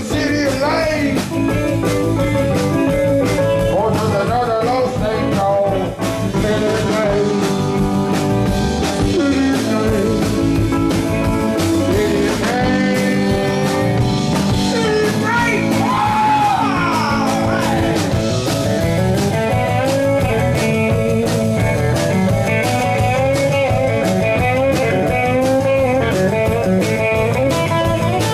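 A live rock band playing a slow blues-rock number, with electric guitar and drums under a singing voice.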